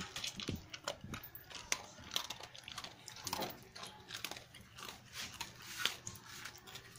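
Dog chewing dry kibble from a metal bowl: irregular crisp crunching bites.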